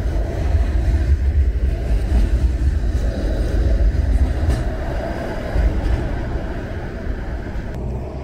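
Bombardier Flexity Outlook streetcar passing close by, a steady low rumble of its wheels on the rails that eases off a little in the last few seconds as it moves away.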